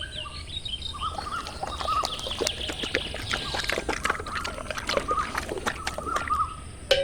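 Birds calling in short, repeated chirping phrases, with many sharp clicks scattered throughout.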